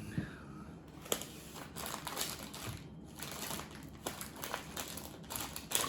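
Plastic packaging crinkling and rustling as it is handled, in irregular bursts, with a couple of sharp clicks.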